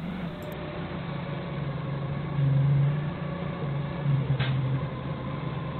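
Doosan 4.5-ton forklift's engine running steadily as the forklift travels with a loaded pallet of paving blocks. The engine gets louder for about a second, a little after two seconds in, then settles back.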